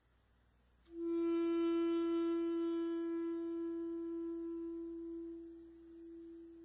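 Solo alto saxophone holding one long note that begins about a second in, strongest at first and then slowly fading away.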